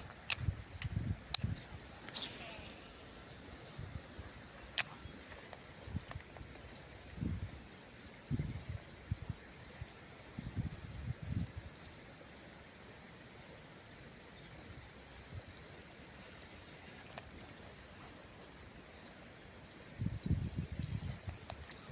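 Steady high-pitched chirring of insects, with scattered low thumps and a few sharp clicks over it, the thumps bunching together about halfway through and again near the end.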